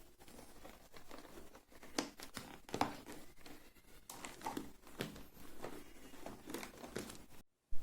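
Hands working a helmet's padding and a microphone cable into place: irregular rustling and crinkling with scattered small clicks. It cuts out briefly near the end, then there is a sudden loud knock.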